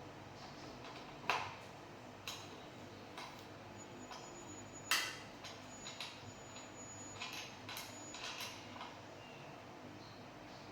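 A series of irregular sharp clicks and knocks, about ten in all, the loudest about five seconds in.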